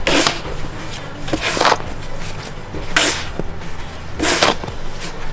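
Snow shovel blade scraping along a snow-covered sidewalk, four pushes about a second and a half apart.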